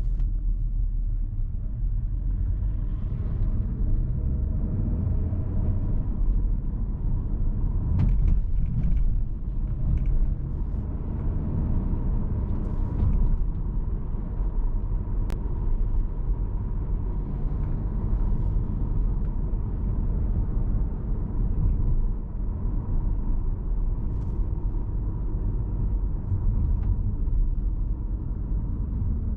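Cupra Formentor VZ5's 2.5 TFSI five-cylinder engine and road noise while the car drives at a fairly steady pace, a continuous low rumble with no marked revving.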